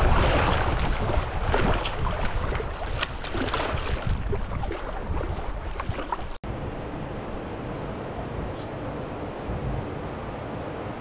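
Wind buffeting the microphone and water splashing as a kayak is paddled along a river. After a sudden cut about six seconds in, the sound drops to a quieter steady water-and-air hiss with a few faint high chirps.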